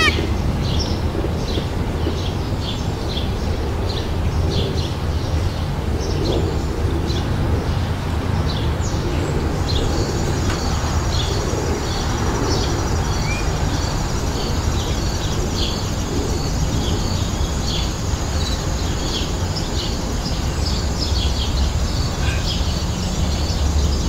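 Many short bird chirps scattered throughout, over a steady low rumble and hiss. A thin, steady high tone joins about ten seconds in.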